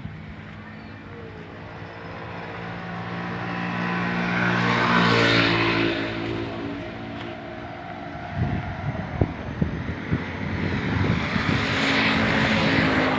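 A motor vehicle engine running, growing louder to a peak about five seconds in and then easing off. A few sharp knocks come around eight to ten seconds in, and another engine swell follows near the end.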